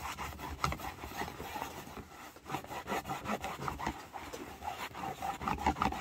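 Soft cloth rag rubbed briskly back and forth over dyed, tooled leather, buffing the finish to a shine: rapid, rhythmic rubbing strokes that stop suddenly at the end.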